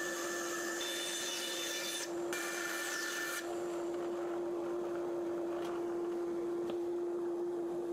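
Band saw running with a steady hum, its blade cutting through the wooden tray frame for the first three seconds or so, then running free once the piece is pulled clear.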